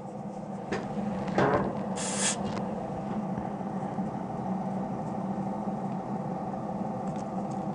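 Steady machine hum from a small motor, with a couple of light knocks and a short hiss of air about two seconds in.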